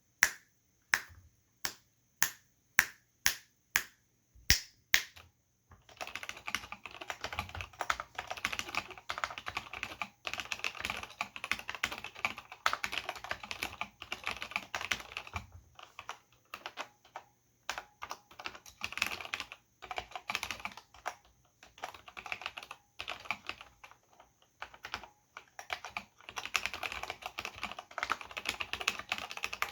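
Cherry G80-0499 mechanical keyboard with Cherry MX Black linear switches and ABS doubleshot keycaps being typed on. It opens with about nine single, evenly spaced key presses over the first five seconds, then turns to steady fast typing from about six seconds in, broken by a few short pauses.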